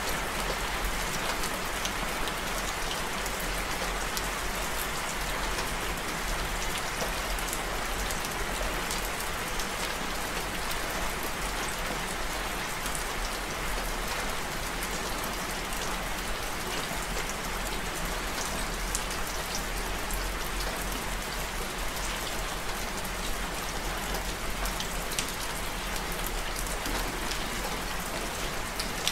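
Steady heavy rain: an even hiss of falling rain, with scattered single drops ticking throughout.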